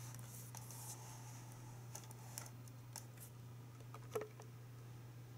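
Faint, scattered small clicks and light handling noises over a steady low hum, the sharpest click about four seconds in.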